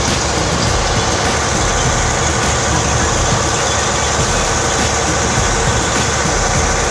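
Steady drone of a motor boat's engine running under way, with water rushing and splashing along the hull.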